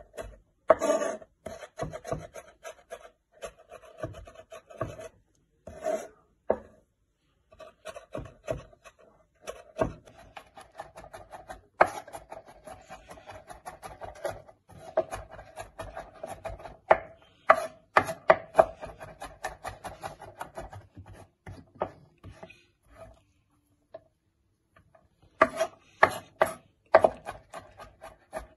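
Kitchen knife mincing garlic and green onion on a wooden cutting board: fast, uneven knocks of the blade on the wood mixed with scraping, in runs broken by two short pauses.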